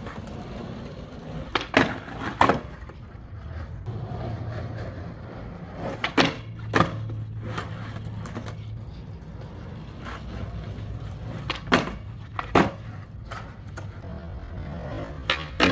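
Skateboard on pavement: four pairs of sharp wooden clacks, each the tail popping and the board landing under a second later, with the wheels rolling in a low rumble between tricks.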